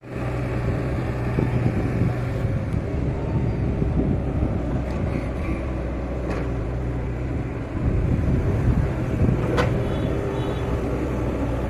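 Excavator's diesel engine running steadily under load, with a couple of short metallic knocks from the machine.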